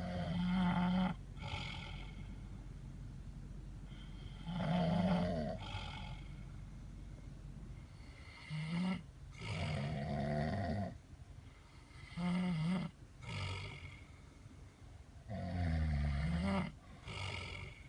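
A sleeping person snoring: rasping snores in irregular bursts of half a second to a second and a half, some coming in quick pairs.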